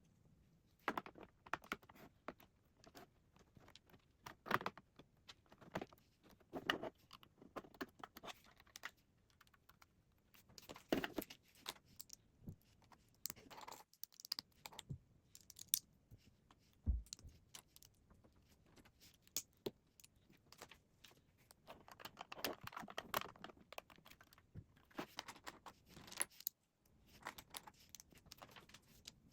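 Plastic Lego pieces clicking and clattering as they are handled, sorted and pressed together, in irregular bursts of small sharp clicks with a single dull knock midway.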